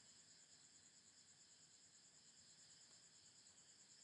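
Near silence: faint room tone with a steady, evenly pulsing high-pitched trill in the background.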